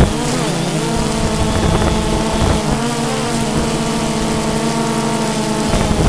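Quadcopter's electric motors and propellers whining in flight, several close tones drifting up and down in pitch against each other as the rotors change speed.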